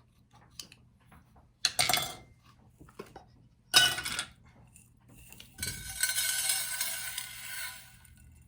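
Two clattering knocks as a metal baking pan and sprinkle container are handled, then sprinkles poured out onto the pan in a steady pattering rattle lasting about two seconds.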